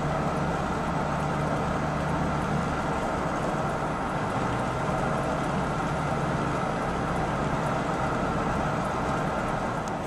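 Steady engine hum and road noise of a moving car, heard from inside its cabin.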